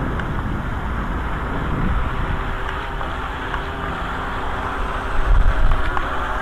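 Wind rumbling on the microphone, with a stronger gust about five seconds in. Over it, from about two seconds in, a faint steady whine from the radio-controlled boat's small electric motor running out on the water.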